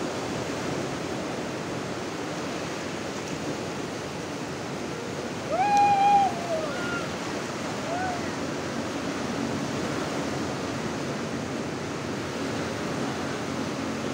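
Surf breaking and washing up a beach, a steady rush of waves. About halfway through a person shouts out once, briefly and louder than the surf, followed by a couple of fainter calls.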